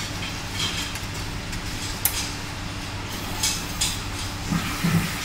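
Automatic filter integrity tester running a bubble point test on a PTFE filter cartridge: a steady low mechanical hum with a few short, high hisses of air.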